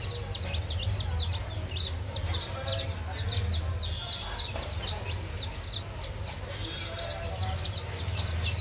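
Baby chicks peeping continuously, many short, high, falling peeps overlapping several times a second, over a low steady hum.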